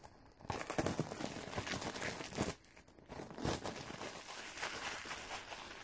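Plastic shrink-wrap being torn and peeled off a Blu-ray box set, crinkling and crackling in two stretches with a short pause about halfway through.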